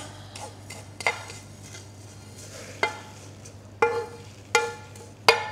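A wooden spatula knocking and scraping against a frying pan as dry-toasted coconut is pushed out into a mixing bowl, in a few separate knocks.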